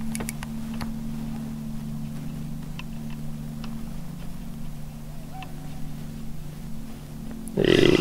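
Steady low hum of a boat's motor, with a few faint ticks, that cuts out about a second before the end. Just before the end a louder rushing sound starts.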